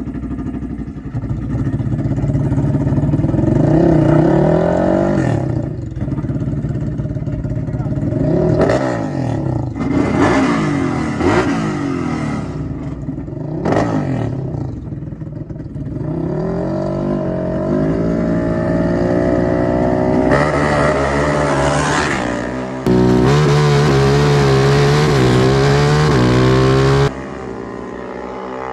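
ATV engines revving hard under acceleration, the pitch climbing and dropping again and again as they shift through the gears. Late on comes a loud, steady high-rev stretch that cuts off suddenly.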